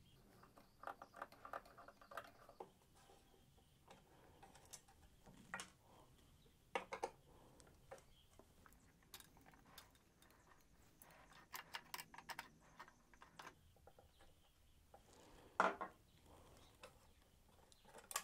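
Faint clicks, ticks and small metallic knocks of a screwdriver working crosshead screws out from under the housing of a Kenwood Chef A901 food mixer, some in quick clusters, with one louder knock about three-quarters of the way in.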